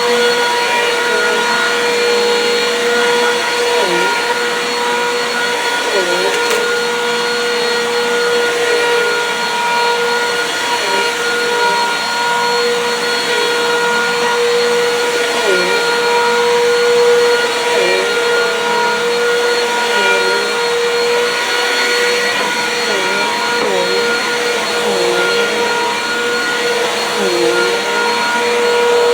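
Bissell PowerForce Compact Turbo vacuum cleaner running on carpet: a loud, steady motor whine whose pitch dips briefly and recovers again and again as the machine is pushed over the floor.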